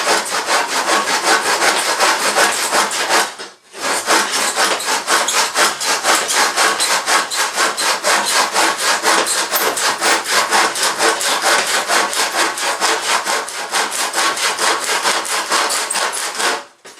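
Handsaw cutting through wood with fast, steady back-and-forth strokes, pausing briefly about three and a half seconds in before carrying on.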